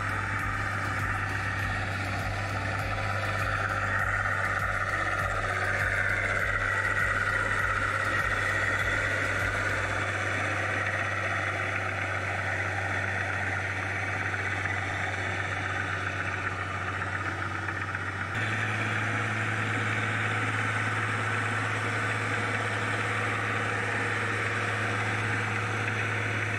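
Tractor engine running steadily as it pulls a rotary tiller through a flooded rice paddy, a low even hum. The hum shifts slightly higher about two-thirds of the way through.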